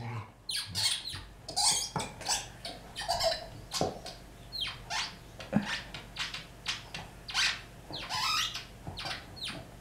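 Rubber squeaky ball squeaked over and over by a dog biting on it, short high squeaks about twice a second, some sliding down in pitch.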